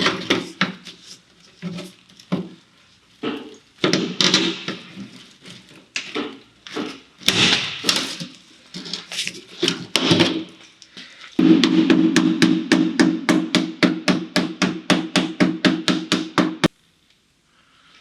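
Hammer blows on a car's sheet-metal body panel, each with a short metallic ring. They are irregular at first, then become a fast steady run of about six blows a second that stops abruptly.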